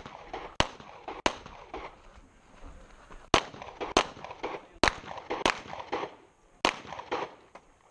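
Handgun shots fired in quick pairs, about two-thirds of a second apart, with pauses of one to two seconds between the pairs. Four pairs are heard, each shot sharp and followed by a short echo. The pattern is typical of double taps on each target in a USPSA stage.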